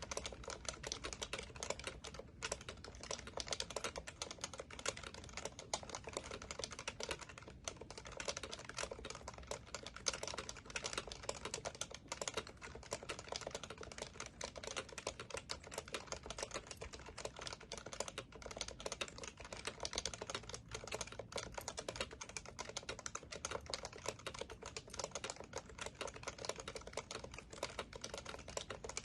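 Continuous fast typing on an HHKB Professional Classic keyboard with Topre capacitive switches: a dense, even stream of keystrokes with only brief gaps.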